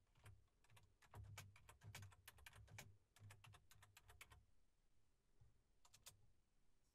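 Faint typing on a computer keyboard: a quick run of keystrokes for about four seconds, then a pause and a couple more key presses about six seconds in, as the message is sent.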